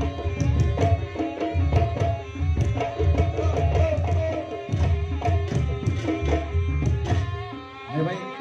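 Live reog dance music: hand drums beating a busy rhythm over heavy low beats, with a wavering melody line on top. The music dips briefly near the end.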